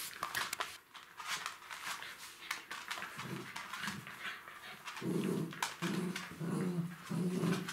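Jack Russell terriers play-fighting over a rope toy: claws clicking and scrabbling on a laminate floor, and from about five seconds in a run of low play growls, about four in a row.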